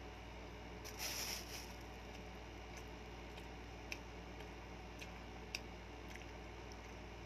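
Faint sounds of eating sisig and rice by hand: chewing and mouth sounds, with a short soft rustle about a second in and a few small clicks, over a steady low hum.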